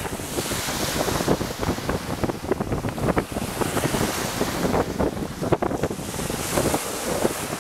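Small waves breaking on a sandy shore, with gusty wind buffeting the microphone.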